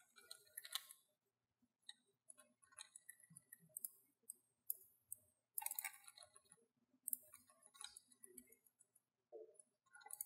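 Faint, irregular clicks of a computer keyboard and mouse being worked, over a faint steady hum of room equipment.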